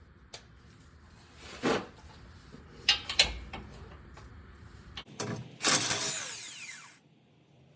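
Hand tools working on exhaust header bolts under a car: several sharp metal knocks and clinks, then a louder harsh rasp lasting over a second about five seconds in.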